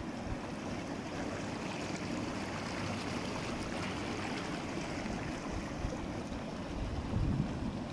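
Lay-Z-Spa Milano inflatable hot tub with its air-bubble massage system running: the water bubbles and churns in a steady rushing hiss. A few low rumbles of wind on the microphone come near the end.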